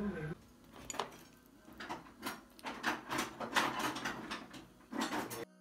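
Handling noises: a string of irregular short rustles and knocks, like food and tableware being moved by hand, stopping abruptly near the end.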